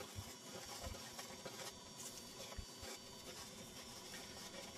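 Wooden spoon stirring dry bread mix and yeast round a saucepan: faint, soft scraping and patter, with wind buffeting the microphone in low thumps.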